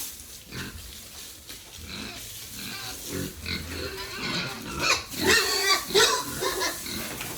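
Pigs grunting and calling, with a run of louder, higher-pitched calls about five seconds in.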